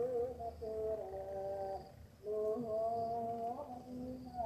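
Background music: a slow, soft melody of long held notes, like humming, with a brief break about two seconds in.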